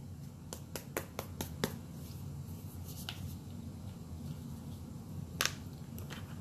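Sharp little clicks from a container of mineral foundation being shaken and handled, a quick run of about seven in the first couple of seconds, then a few scattered ones.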